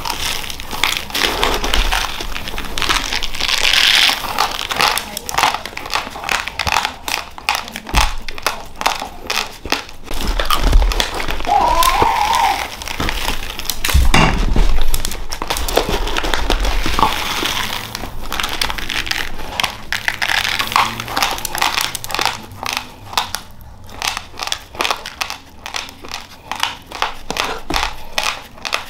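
Raw rice grains crunching as they are chewed close to the microphone, a dense run of small cracks, mixed with the crinkle of a plastic rice bag and the rustle of dry grains as a hand scoops into the bag.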